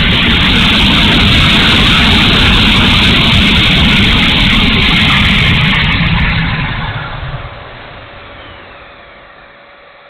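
Onboard sound of an E-flite F-16's 70 mm electric ducted fan at high power, a loud steady rush of fan and airflow. About seven seconds in, the rush falls off sharply to a much quieter hum with a faint steady tone, as the power comes back in a dive.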